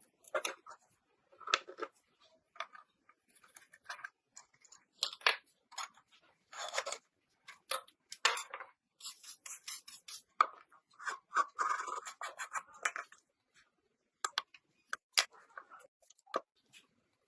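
Irregular clicks and short scraping and rubbing strokes of hand work on small metal parts, in uneven bursts with brief pauses.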